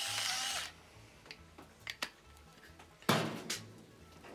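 Salt mill grinding salt onto a raw beef roast, a steady grinding noise that stops well under a second in. Then a few faint taps, and about three seconds in a sharp knock as the mill is set down on the table.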